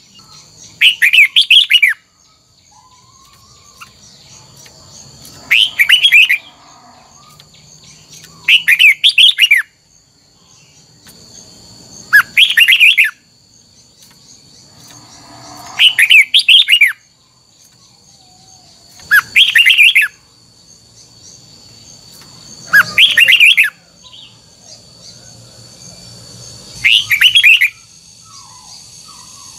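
Red-whiskered bulbul singing short, loud, fluty phrases, one roughly every three and a half seconds, eight in all.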